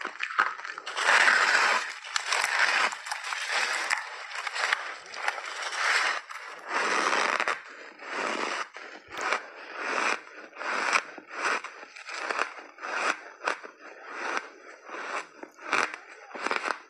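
A person biting into and chewing big chunks of crunchy refrozen ice held close to the mouth: loud, dense crunching for the first several seconds, then a steady run of short crunches about two a second as the mouthful is chewed down.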